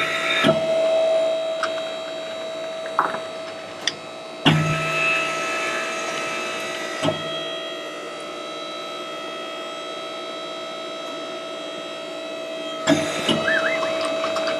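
A hose crimping machine being worked by hand: a steady hum, with several sharp knocks and clicks from the dies and fitting being handled, bunched about 3 to 7 seconds in and again near the end.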